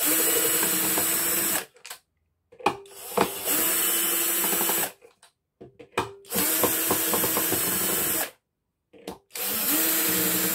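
Power drill-driver undoing screws, run in four short bursts with brief pauses between them. Its motor speeds up at the start of the second burst.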